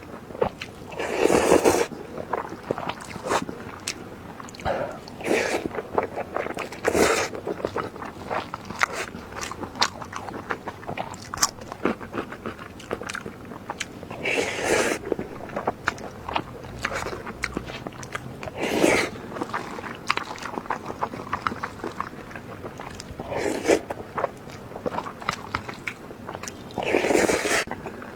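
Close-miked eating sounds: wet chewing and lip smacking, with a louder, longer mouth sound every few seconds.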